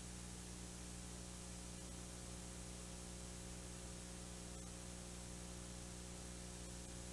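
Faint, steady electrical hum with a hiss above it and no music, unchanging throughout.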